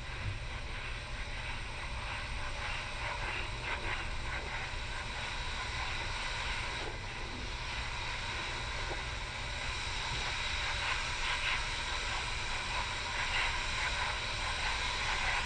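Steady wind noise and hiss on an outdoor microphone, with a constant low rumble underneath.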